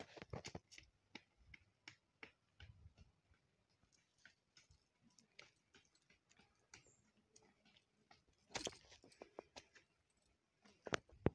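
Faint, irregular footsteps and scuffs on a leaf-strewn dirt path, heard as scattered small clicks and taps, with a denser patch about eight and a half seconds in and a sharp click near the end.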